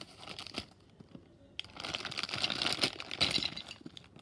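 Clear plastic packaging bag crinkling as hands handle it, light at first and growing louder and denser from about a second and a half in.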